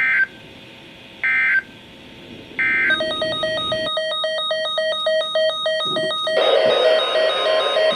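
Three short bursts of EAS (SAME) digital data tones, about 1.3 seconds apart: the end-of-message code that closes a NOAA Weather Radio warning. About three seconds in, a rapidly pulsing electronic beeping of several tones starts, and a hiss joins it a few seconds later.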